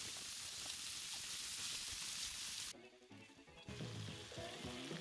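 Thick beef burger patties sizzling in a nonstick skillet on a butane camp stove, a steady hiss that cuts off abruptly about two and a half seconds in and goes on much fainter after that.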